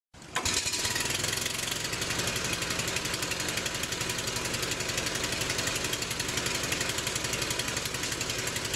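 Engine-driven pressure washer running steadily, with a fast pulsing throb from the engine and pump under the hiss of the high-pressure water jet. It starts abruptly just after the beginning.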